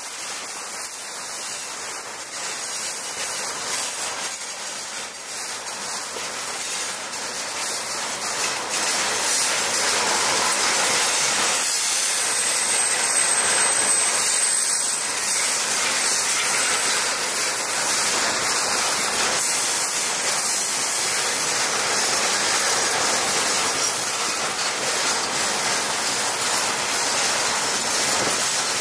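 Railway tank wagons of a long freight train rolling past close by: a steady rushing rumble of steel wheels on rail, with quick clicks of wheels over rail joints that are thickest in roughly the first ten seconds.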